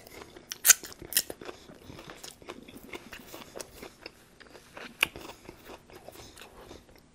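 Close-miked chewing of a mouthful of crispy fried battered chicken, with a few sharp crunches, the loudest about a second in and again about five seconds in.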